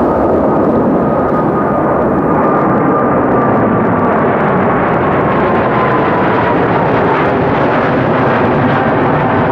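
Twin GE90-115B turbofans of a Boeing 777-300ER at takeoff thrust as the jet climbs directly overhead: loud, steady jet noise with a high whine that slowly drops in pitch as it passes.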